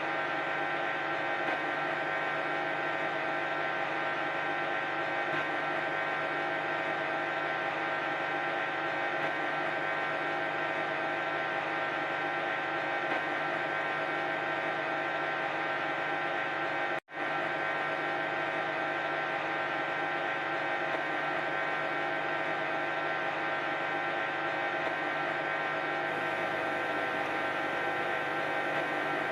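Hoover 10 kg washing machine on its 1400 rpm spin, the drum spinning at a steady top speed with an even, many-toned hum and whine. The sound cuts out for an instant about seventeen seconds in.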